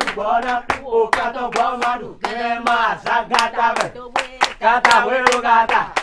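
Voices chanting a Vodun ceremonial song, accompanied by steady hand clapping at about two claps a second.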